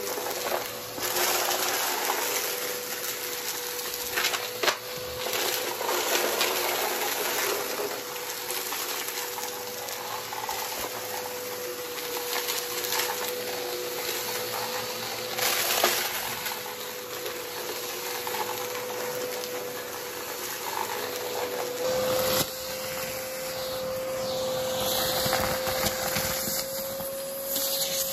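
Purple upright bagless vacuum cleaner running with a steady motor whine while sucking up crunchy, hard debris from a shag rug, the bits crackling and clicking as they are pulled up. About two-thirds of the way in the sound shifts as the suction moves to the hose wand along the hearth edge.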